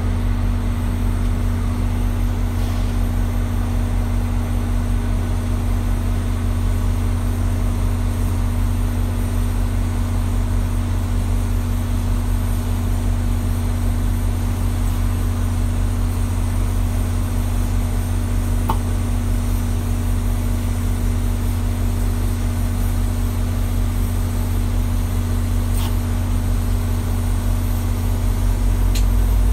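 Diesel locomotive idling: a low, even engine drone that holds steady throughout.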